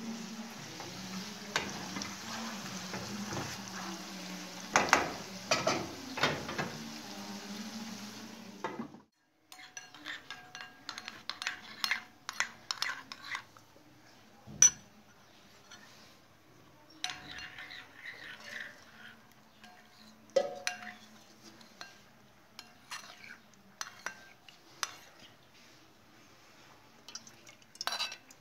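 A wooden spatula stirs food sizzling in a frying pan, with a few knocks against the pan about five to six and a half seconds in. After an abrupt break, a metal spoon stirs a thick paste in a china bowl, with scattered light clinks against the bowl.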